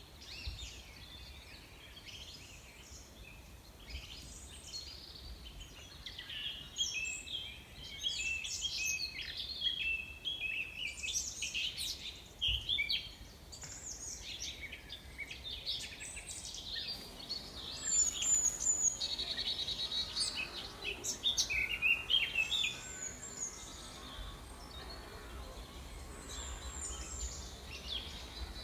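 Small birds chirping and twittering in quick, overlapping calls, busiest through the middle, with a fast trill about two-thirds of the way through, over a faint low steady hum.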